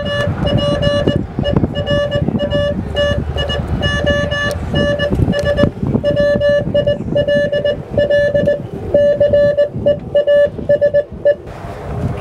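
Morse code: a single electronic tone keyed on and off in short and long beeps, stopping near the end, over a low rumbling background noise.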